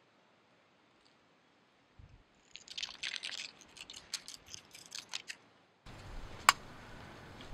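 Dry leaves crackling and skittering over asphalt close to the microphone. After a cut, a low steady rumble with one sharp click about a second later.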